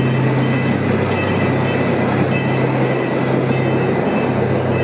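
Park miniature train running into the station: a steady low engine hum with a regular click of the wheels over rail joints, about every two-thirds of a second.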